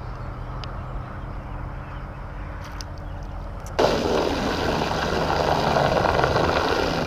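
Small boat motor running as the boat is steered by its tiller, with a low steady hum; about four seconds in it turns to a louder rushing sound of the motor and water churning at the stern as the boat moves.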